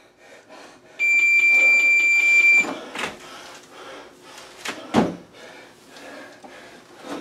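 A single steady, high electronic beep from an interval timer, lasting about a second and a half, marking the halfway point of a timed exercise round. It is followed by thuds of bare feet on an aerobic step platform, the loudest about five seconds in, as a weighted squat-jump lands on the step.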